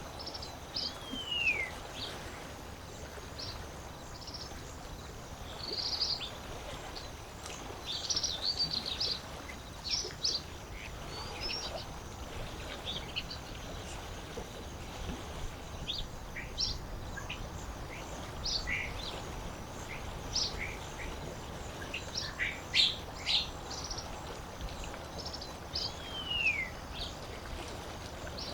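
Wild birds chirping and calling at a lakeside, many short chirps scattered through, with a falling whistled call about a second in and again near the end. A steady background of water runs underneath.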